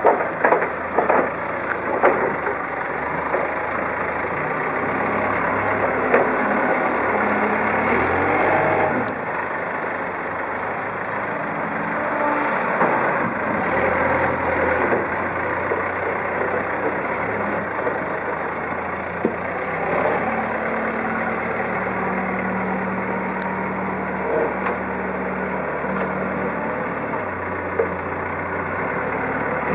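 Manitou 5-tonne rough-terrain forklift's diesel engine running, its note shifting now and then and holding a steady low tone for several seconds in the second half.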